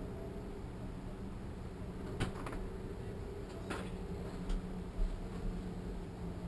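Quiet indoor room tone: a steady low hum, with a few soft clicks about two to four and a half seconds in.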